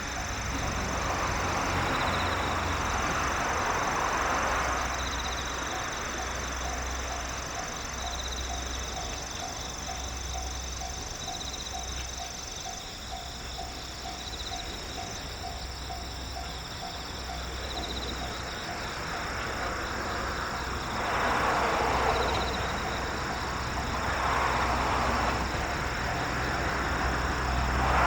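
Outdoor ambience of insects trilling steadily at a high pitch, with swells of rushing noise that grow louder in the last few seconds.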